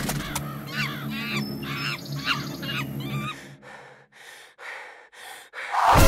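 Cartoon fight sound effects: a run of short, squawking animal calls with bending pitch over background music, then about five short rushing noises half a second apart, and a loud hit near the end as the baboon jumps on the zebra.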